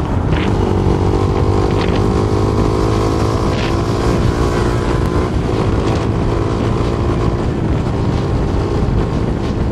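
Motorcycle engine running at a steady cruise, its note holding level, over a steady rush of wind noise.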